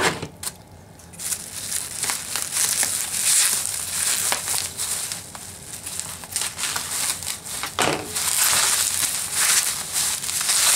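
Plastic bubble wrap crinkling with many small crackles as it is cut open with scissors and pulled apart by hand.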